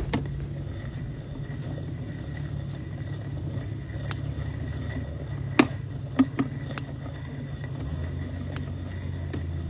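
A steady low motor hum with a few sharp clicks and knocks while a sewer inspection camera's push cable is pulled back through the line; the loudest two clicks come a little past the middle.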